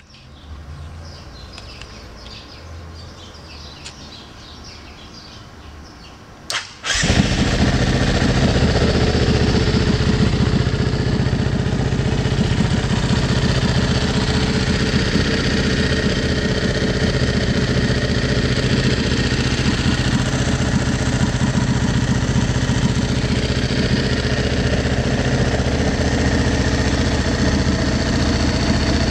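Aprilia SXV 550's V-twin engine on its stock exhaust being started: a short burst as it is cranked, then it catches about seven seconds in and runs steadily.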